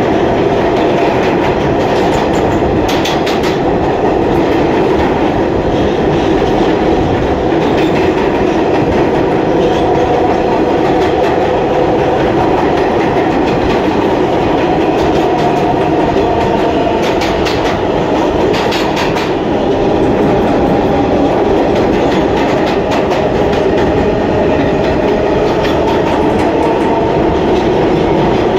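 Interior of an R160A subway car running along the track: a steady loud rumble and roar of wheels and motors, with a few short bursts of wheel clacks over rail joints.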